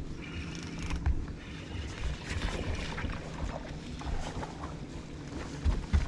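Wind and water noise on a bass boat's deck while a bass is fought on rod and reel, with scattered knocks and a few loud thumps on the deck near the end as the fish is brought aboard.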